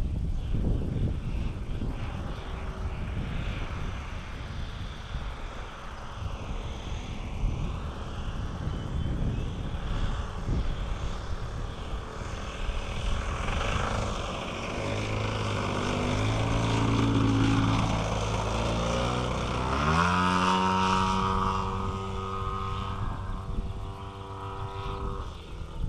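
Engine and propeller of a 35% scale radio-controlled Yak aerobatic plane flying in the distance. Its note shifts with the throttle and climbs sharply about twenty seconds in, then holds a high steady pitch.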